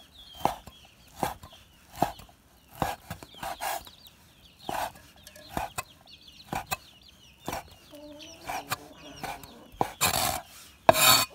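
A cleaver chopping cured ham into dice on a wooden chopping board, one sharp chop roughly every second. Near the end come two louder, longer strikes.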